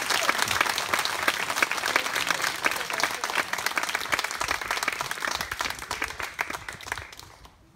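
Wedding guests applauding, a dense patter of many hands clapping that dies away near the end.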